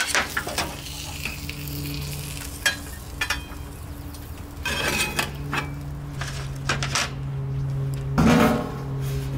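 Metal spatula scraping and clanking on a hot steel flat-top griddle while oil sizzles. There are several sharp scrapes, the strongest near the end, over a steady low hum.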